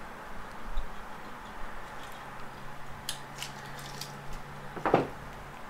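Light metallic clinks and taps as steel feed pipes are pulled from an aluminium transmission valve body and set down on the bench, with a short louder sound near the end.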